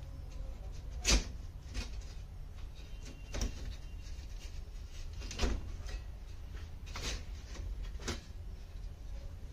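Knocks and clicks from handling an LCD TV panel and its loosened frame as it is worked free: about six sharp clacks, spaced a second or two apart, over a steady low hum.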